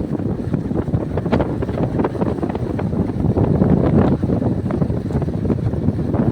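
Wind buffeting the microphone: a loud, rough low rumble with irregular gusts and a few sharp crackles.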